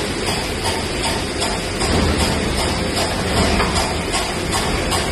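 A machine running with a steady, rapid mechanical clatter, about four beats a second.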